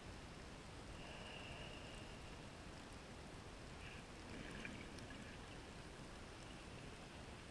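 Faint steady underwater hiss of a scuba dive on a reef at depth, heard through the camera, with a brief swell about four seconds in and a few faint high tones.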